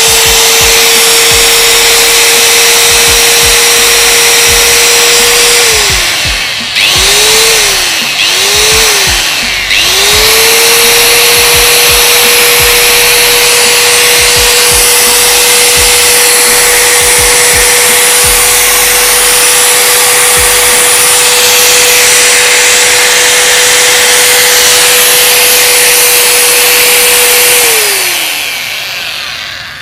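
Bosch GWS 060 670-watt 4-inch angle grinder running at full speed with no disc fitted, a steady whine. About six seconds in it is switched off and winds down, is blipped on twice briefly, then runs up again and holds before switching off and spinning down near the end. The running sound is fairly smooth.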